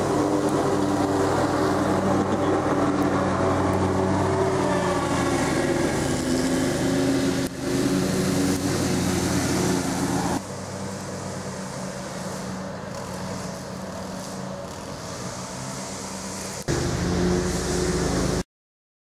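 Motor vehicle engine running under way, a steady droning hum. It suddenly gets quieter about ten seconds in, comes back loud near the end, then cuts off abruptly.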